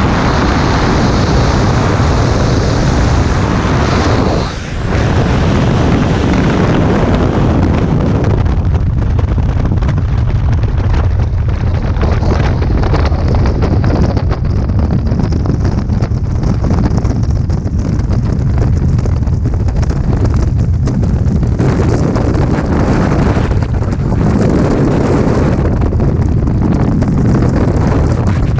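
Freefall wind blasting over a skydiver's camera microphone: a loud, steady rush with a deep rumble, dipping briefly about four and a half seconds in.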